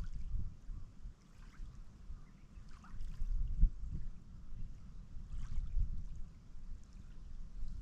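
Small lake waves lapping at the shore, under a low, uneven rumble of wind on the microphone.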